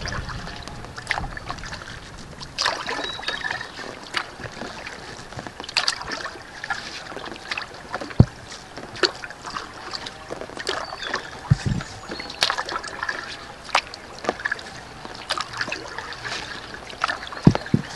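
Kayak paddle strokes in calm river water: irregular splashes and drips from the blades, with a few knocks, the loudest about eight seconds in and another near the end.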